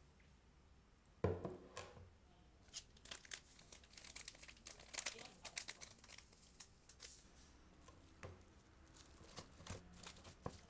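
Faint paper-and-plastic tearing and crinkling as a dry yeast sachet is torn open and shaken out over a glass of wort, then plastic wrap crinkling as it is stretched over the glass. A single knock about a second in is the loudest sound.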